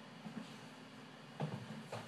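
Quiet room tone with a faint hiss and a single soft knock about one and a half seconds in.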